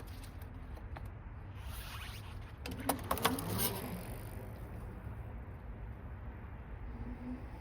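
Tuttio ICT e-bike with a metal-geared hub motor being ridden: a steady low rumble of wind and tyres, with a few clicks and rattles about three seconds in and a faint rising motor whine near the end.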